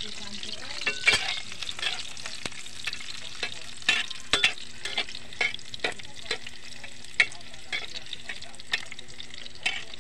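Chopped garlic frying in hot oil in a wok, a steady sizzle, as it is stirred, with irregular sharp clicks throughout.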